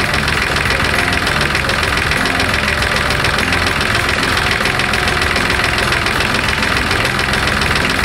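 Kubota B1700 compact tractor's three-cylinder diesel engine idling steadily with an even, rapid knock, running after an engine rebuild.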